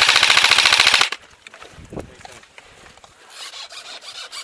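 Airsoft rifle firing a rapid full-auto burst that cuts off about a second in, followed by quieter rustling and scattered clicks.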